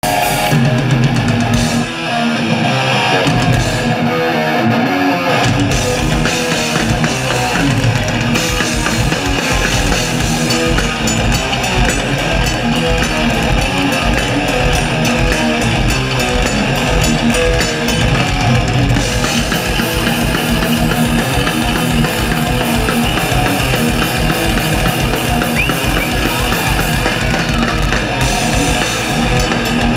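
Thrash metal band playing live at full volume: distorted electric guitars, bass guitar and drum kit. The drums fill in after about six seconds into a fast, driving beat.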